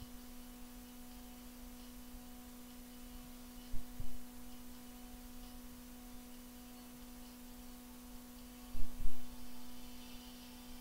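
A steady low hum with two quick pairs of dull, low thumps, about four seconds in and again near nine seconds in.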